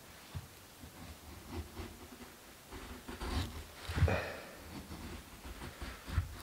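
Knife blade shaving curls down a split stick of dry wood to make a feather stick: a few separate scraping strokes, the loudest about four seconds in, some with a low thud through the wooden floor.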